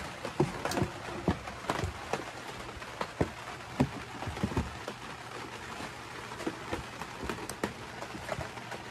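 Rain pattering, with irregular sharp taps and clicks over a faint low steady hum.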